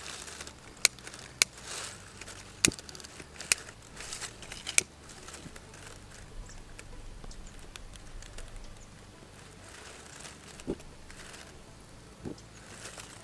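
Dry leaves and kindling rustling and crinkling as they are handled to start a campfire, with five sharp clicks in the first five seconds.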